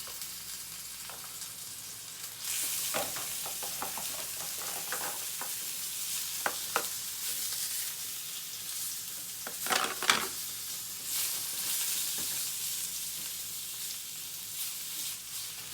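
Blanched spinach sizzling in a frying pan of eggplant-and-tomato sauce as it is warmed and stirred, with a steady hiss that gets louder about two and a half seconds in. Short knocks of a utensil against the pan come throughout, loudest about ten seconds in.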